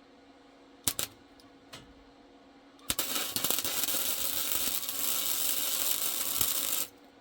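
MIG welder arc crackling on steel in one continuous run of about four seconds, then cutting off sharply as the trigger is released. A couple of sharp clicks come about a second in, and a faint steady hum sits underneath.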